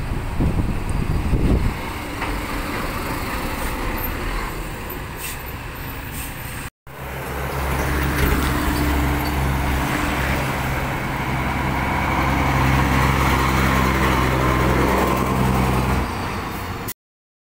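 Heavy multi-axle dump trucks driving past on a road with their diesel engines running. First a HOWO dump truck goes by. After a brief dropout, an orange dump truck approaches and passes close, its deep, steady engine drone growing louder. The sound cuts off abruptly shortly before the end.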